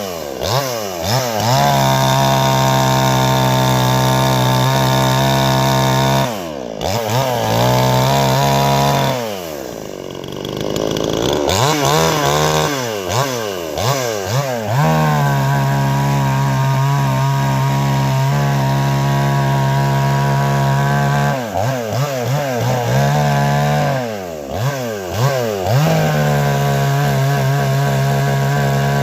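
Budget gas chainsaw running at high revs, its engine speed sagging and climbing back again several times, with a longer, deeper drop about ten seconds in.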